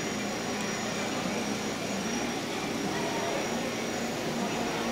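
Steady background din of a large exhibition hall: many people talking at a distance over a constant hum.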